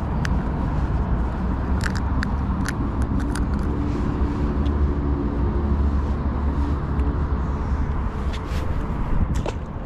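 Steady low background rumble with a faint engine hum through the middle, and a scattering of short sharp clicks from hands working a soft-plastic lure free of a caught zander's mouth and handling the fish.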